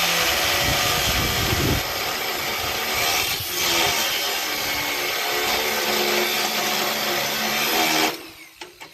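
Power tool cutting off a sharp protruding piece, running steadily under load with a motor whine under a loud hiss. It stops about a second before the end.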